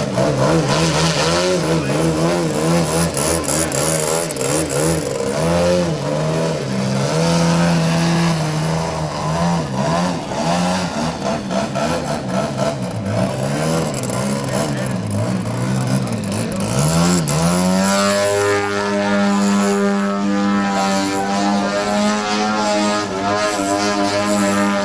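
Engine and propeller of a large radio-controlled aerobatic airplane in flight, its pitch swinging up and down with the throttle. About seventeen seconds in it revs up with a rising pitch and then holds a steady, high drone.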